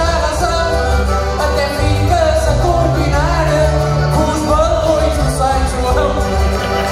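Portuguese cantar ao desafio: a folk singer's voice over a concertina playing chords and a steady bass line that changes note every second or two.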